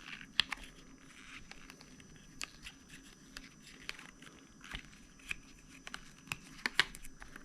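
Parts of a small Snap-on light being handled and worked together by hand: irregular light clicks and small handling noises, with a sharp click about half a second in and a few more near the end.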